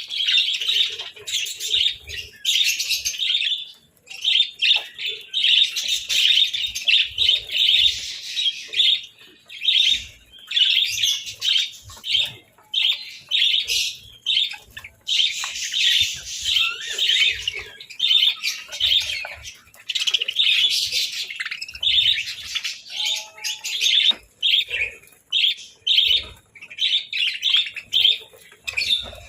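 A flock of budgerigars chirping and chattering continuously, many rapid overlapping chirps with short pauses.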